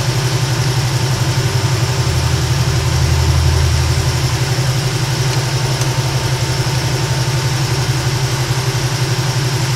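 Steady low drone of shop machinery running, with a fast, even throb. A deeper hum swells in for a couple of seconds about two seconds in.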